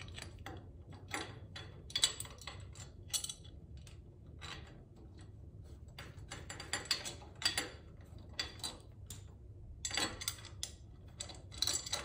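Irregular small metallic clicks and clinks from a chrome footpeg hanger bracket being handled and fitted against a motorcycle's frame, with its bolts started by hand.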